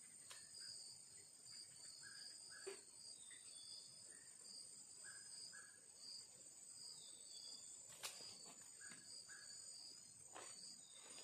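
Faint insects: a steady high-pitched drone with short chirps repeating every second or so, and a few faint clicks.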